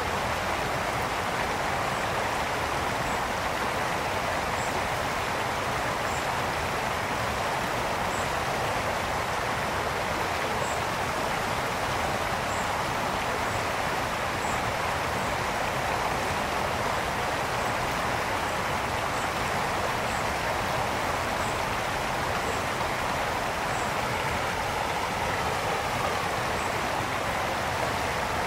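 Mountain brook flowing over stones: a steady, even rush of water with no change in level.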